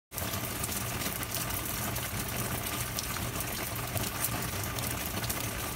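Steady rain falling, with scattered drops ticking on nearby surfaces and a low steady hum underneath.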